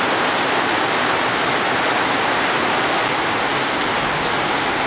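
Heavy tropical downpour: rain pouring onto roof tiles and paving and streaming off the eaves, a dense, steady hiss that holds level throughout.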